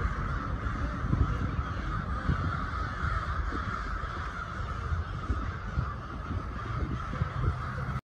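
A large flock of crows cawing all at once, the many overlapping calls merging into a continuous din, over a steady low rumble.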